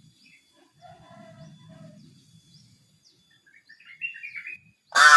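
Pet crow making a few soft chirping sounds, then a loud, harsh caw starting near the end.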